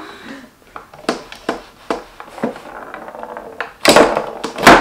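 Small wooden tabletop foosball game in play: the ball and the player figures on their rods knocking against each other and the wooden box in an irregular string of sharp clacks. The two loudest clacks come about four seconds in and just before the end.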